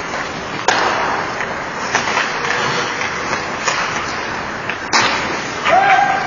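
Ice hockey game in play: about four sharp clacks of sticks, puck and boards, spread over a few seconds, over steady rink noise. A brief rising, then held tone sounds near the end.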